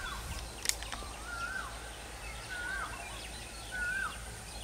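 A bird repeating a short whistled call about once every second and a quarter, each note rising and then dropping, over steady outdoor background noise. A single sharp click comes about three-quarters of a second in.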